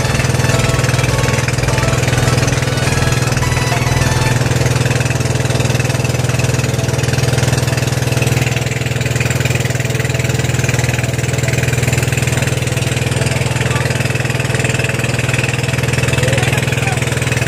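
Outrigger boat's engine running steadily while the boat is underway, heard from on board as an even, unbroken drone.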